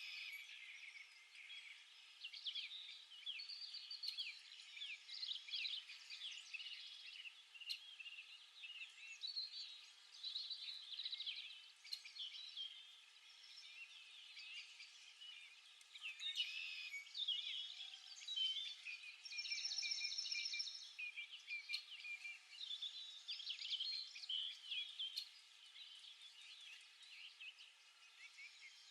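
Many small birds chirping and calling at once in a steady, overlapping chatter, with one longer buzzy call about two-thirds of the way through.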